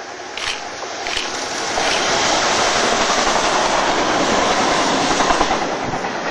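A Class 66 diesel locomotive hauling an engineering train of flat wagons and a rail crane passes at speed. After a couple of sharp clicks, the engine and the wheel-on-rail noise of the wagons build from about two seconds in to a steady, loud rush.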